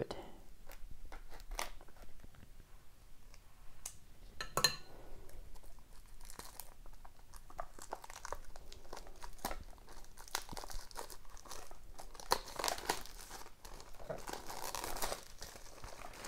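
A sealed hockey card hobby box being cut and opened by hand: scattered clicks and scrapes of cardboard and plastic, a sharper snap about four and a half seconds in, then denser crinkling and tearing of wrapping near the end.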